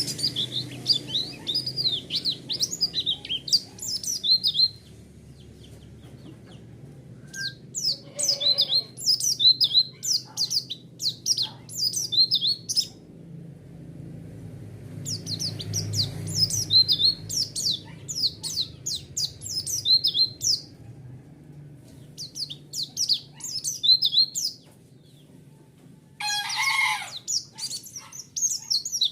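White-eye (pleci) song: phrases of rapid, high twittering chirps, each a few seconds long, separated by short pauses. Near the end a lower, harsher call sounds under the twittering.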